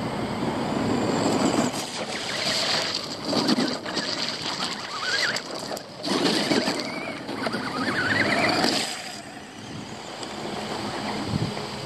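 RC desert buggy driving past over wet gravel, its motor whining up in pitch as it accelerates, twice, with the tyres crunching through the gravel and puddles.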